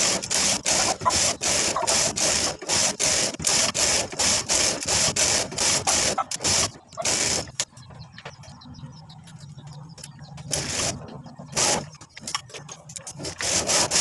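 Flatbed hand knitting machine: the carriage is pushed back and forth across the metal needle bed in quick rasping, clattering strokes, about three a second. The strokes pause a little past halfway and then resume in short runs near the end.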